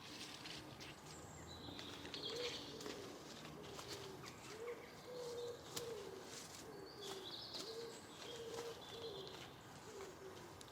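A bird giving a long run of short, low, cooing notes, two or three a second, with a few higher small-bird chirps over them.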